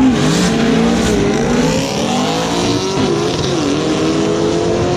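Drag-racing car engines at full throttle, the pitch climbing and then dropping back at each gear shift, several times over.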